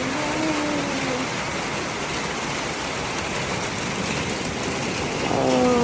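Heavy rain pouring down steadily. Short pitched vocal sounds come in about the first second and again near the end.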